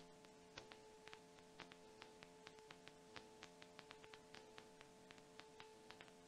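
Near silence: a faint steady hum with scattered faint clicks.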